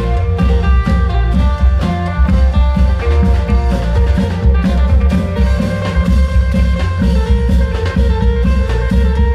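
Amplified Thai klong yao long-drum band playing: heavy, continuous drumming with a held melody line over it.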